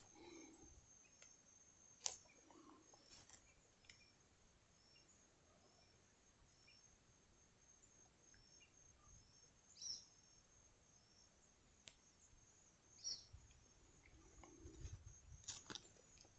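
Faint insects calling: a steady high trill with short high chirps repeating about twice a second. A few sharp clicks stand out, about 2, 10, 13 and 15 seconds in.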